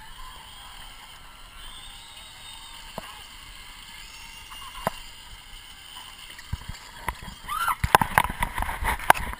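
Shallow muddy water sloshing and splashing as people crawl on their bellies across wet plastic sheeting. It is faint at first, then loud, choppy splashing and knocks for the last three seconds as the handheld camera dips into the water.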